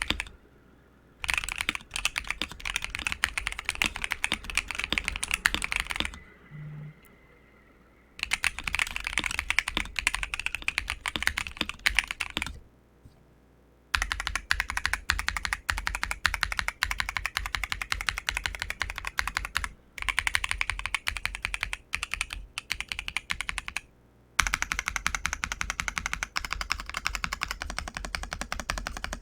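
ASUS ROG Azoth mechanical keyboard, fitted with a PC plate, ROG NX Red linear switches and layers of foam and PET film, typed on quickly: dense runs of key clacks in bursts of several seconds, with short pauses between them.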